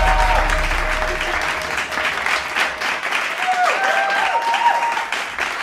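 Wedding guests applauding, a dense patter of hand claps, as the dance music fades out in the first second. Around the middle a couple of voices call out over the clapping.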